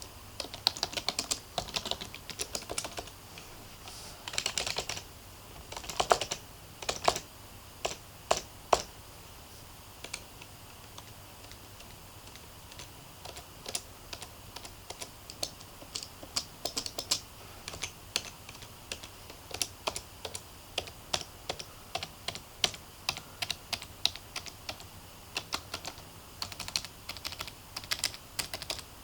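Typing on a Logitech MK250 membrane keyboard: runs of quick key clicks, with a few louder single strokes about six to nine seconds in. A lull of a few seconds follows, then steady typing resumes.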